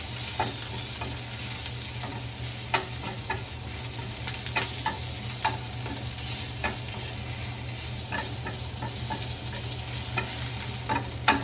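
Chopped vegetables and spinach sizzling in hot oil in a skillet, with a steady frying hiss, while a wooden spoon stirs them, giving short scrapes and taps against the pan now and then and one louder tap near the end.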